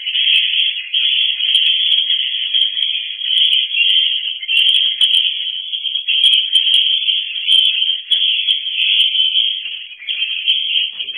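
Swiftlets twittering inside a swiftlet house: a loud, unbroken high-pitched chatter, with scattered faint sharp clicks above it.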